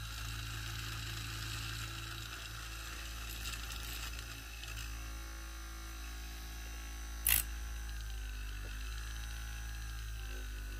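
A steady low electric hum, with a hiss that fades out around the middle, and one sharp click about seven seconds in.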